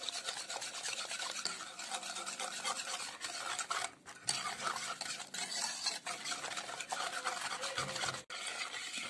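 Metal wire whisk beating cocoa pudding powder into milk in a coated pot: rapid, steady scraping and swishing strokes against the pot, with brief breaks about four and eight seconds in.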